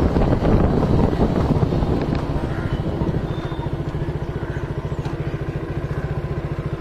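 Motorcycle engine slowing down as the bike pulls up, then idling with an even, fast low pulsing from about halfway through.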